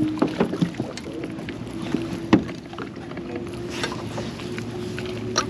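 Boat motor humming steadily with a faint, slowly rising pitch, under scattered light clicks and one sharp knock about two seconds in.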